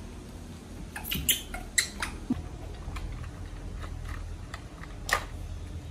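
Light, scattered clicks and taps of small plastic toys being handled and mouthed by a baby macaque and a toddler on a tile floor: a cluster in the first two seconds and one sharper click near the end, over a faint steady low hum.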